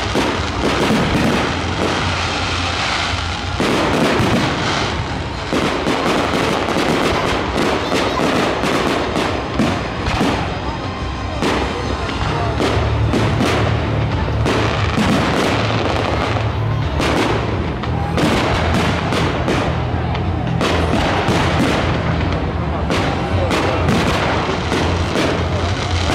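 Fireworks display: aerial shells bursting in quick, irregular succession, the bangs overlapping one another, with music playing underneath.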